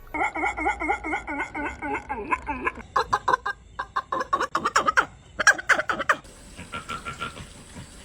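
A dog making strange noises: a fast run of short pitched sounds, about five a second, that turns choppier and more irregular after about three seconds and fades near the end.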